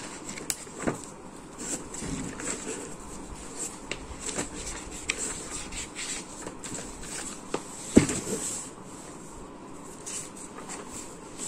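Faint small clicks and rustles of objects being handled on a desk, with one sharp knock about eight seconds in.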